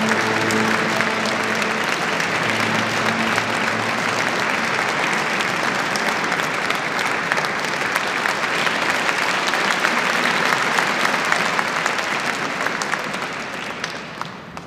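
Concert hall audience applauding: a dense, steady clapping that dies away near the end. A few steady low tones sound under it in the first few seconds.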